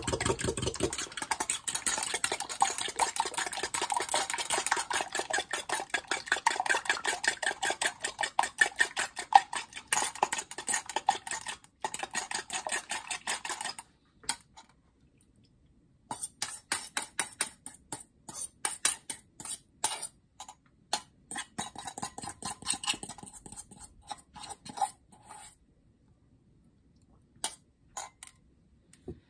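A metal fork beating quickly in a stainless steel mixing bowl, rapid, even strokes of metal clicking and scraping on metal. It stops briefly about halfway through, then comes back in shorter, uneven bursts before trailing off.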